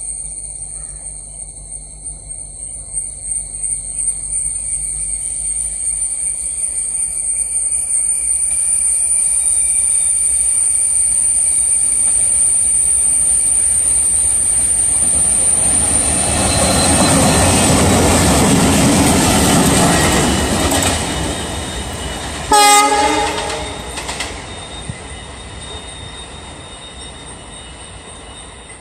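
A light locomotive running without a train approaches and passes, its engine and wheel rumble swelling to a peak about two-thirds of the way through. A short horn blast sounds at the loudest moment, then the sound fades away.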